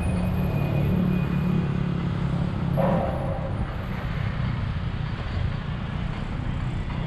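Road traffic: a steady low rumble of nearby vehicle engines, with a brief higher-pitched sound about three seconds in.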